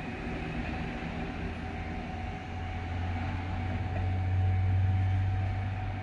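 Diesel train pulling away from the station, with a steady low engine drone that swells about four seconds in and then eases off.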